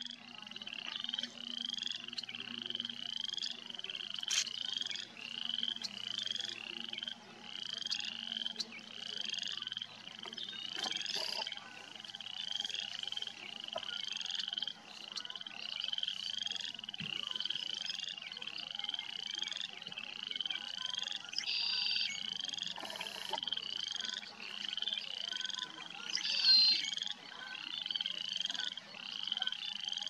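A frog calling over and over: short high calls repeated in a steady rhythm, with one louder call about 26 seconds in.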